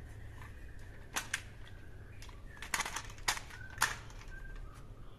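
Scattered sharp plastic clicks and knocks from a toy AK-47 rifle being handled, a few single clicks with a quick cluster just under halfway in.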